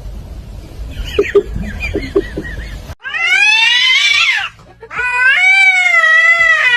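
Cat yowling: two long, loud drawn-out calls, the first rising and then falling, the second held and wavering, after fainter meows in the first few seconds.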